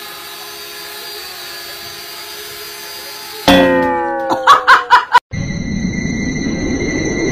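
Soft steady background music, broken about three and a half seconds in by a sudden loud sound with several falling pitches and a few sharp, loud hits. After a cut it gives way to a steady hiss with a few high held tones.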